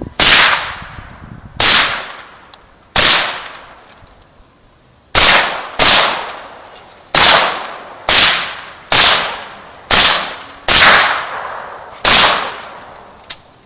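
AR-15 firing Sellier & Bellot 5.56 rounds through a YHM Stainless Phantom suppressor run wet: eleven suppressed single shots at an uneven pace, roughly one a second, each trailing off over about a second. A small click follows near the end.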